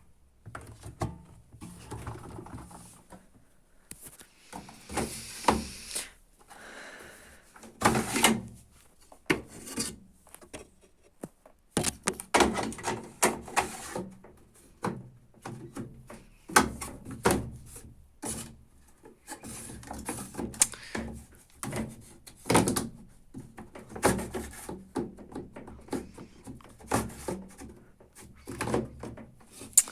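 Handling noises: irregular knocks, thunks and rubbing, as of a door or drawer being opened, shut and moved about, with no motor running.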